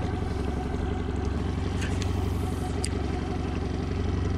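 Small outboard motor idling steadily with an even low hum, with a couple of light clicks about two and three seconds in.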